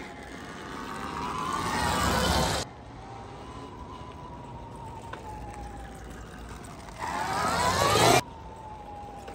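Surron Storm Bee electric motocross bike's motor whining as it rides slowly, its pitch drifting gently. Twice the whine climbs and grows louder as the bike speeds up close by, and each time it cuts off suddenly.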